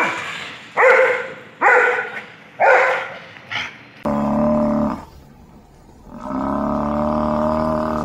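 A husky barking four times in short yelps, followed by two long, steady, low calls from wildebeest, the second one longer.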